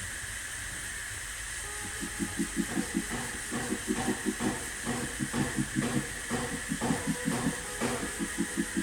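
Rapid runs of hammer taps on the sheet-metal fender, about six or seven a second in short bursts with brief pauses, as in hammer-and-dolly metal finishing. A steady hiss runs underneath.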